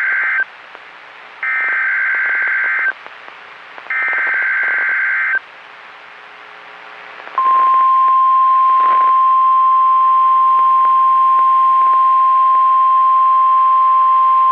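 NOAA Weather Radio SAME alert header: the end of one harsh buzzy digital data burst, then two more about 1.5 s long with short gaps between, encoding the tornado watch alert that switches weather radios on. About two seconds after the last burst the steady single-pitch 1050 Hz Warning Alarm Tone starts and is still sounding at the end.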